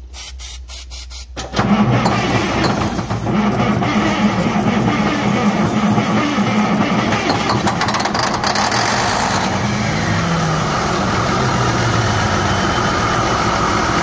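Scania V8 diesel engine cranked by a makeshift starter, catching about a second and a half in on its first start after a rebuild, then running steadily.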